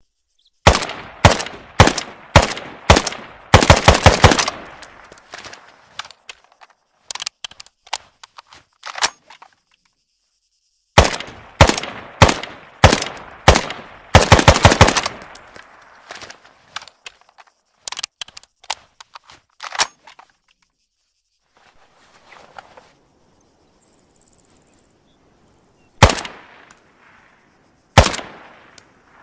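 SKS semi-automatic rifle, firing in 7.62×39 mm: strings of sharp shots about two a second, each with a short echo. Dense rapid clusters of shots come about four seconds in and again around fourteen seconds in. Scattered single shots and a quiet pause follow, then two last shots near the end.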